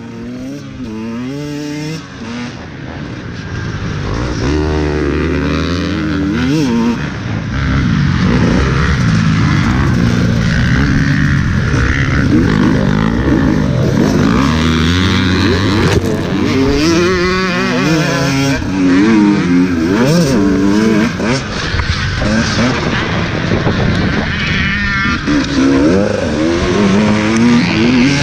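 2017 KTM 150 XC-W single-cylinder two-stroke dirt bike engine, heard from on the bike, revving up and down over and over as the throttle is worked through the track's jumps and turns. It grows louder over the first few seconds as the bike gets under way.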